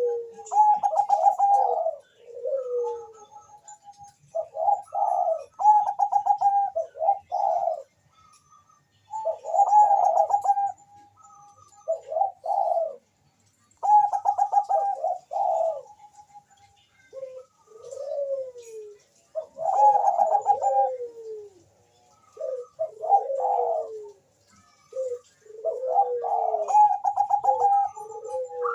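Zebra dove (Bangkok-type perkutut) cooing: about eight rolling, trilled coo phrases, each a second or three long, separated by short pauses. Faint high chirps sound in the background.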